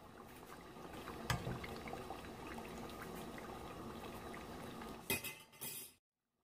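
Metal slotted spoon stirring pork chunks in melted lard in a Dutch oven: faint clinks and scrapes against the pot over a low steady hiss. A sharper clink comes about a second in and two louder knocks come near five seconds, then the sound cuts off.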